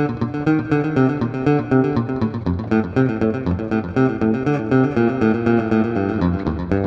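Electric bass guitar played through a delay effect, its notes repeated by the echoes into a fast, continuous stream of plucked notes.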